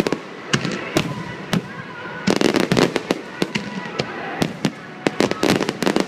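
Aerial fireworks bursting: three single sharp bangs about half a second apart, then two dense clusters of rapid crackling pops, the second near the end.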